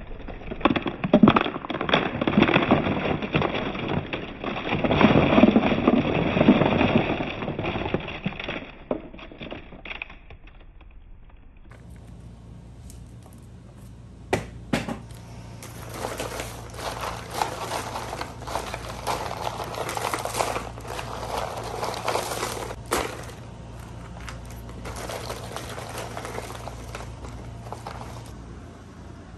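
Boxes and packaging being handled: rustling and crinkling with small clicks and clatters of packed items, busier and louder for the first half, then quieter with a few sharp clicks.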